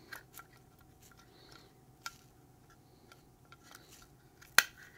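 Faint clicks and light scraping of a Sig Sauer P365 fire control unit being slid into its polymer grip module, with one sharp click near the end as it seats.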